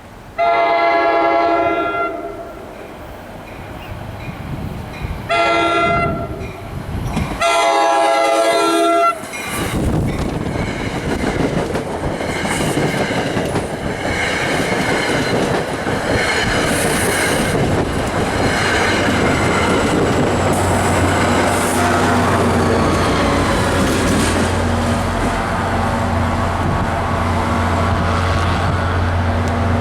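Locomotive multi-chime air horn sounding three loud blasts, the second one shorter. The train then rolls through with wheels clicking over rail joints, and a steady low diesel drone builds up in the second half.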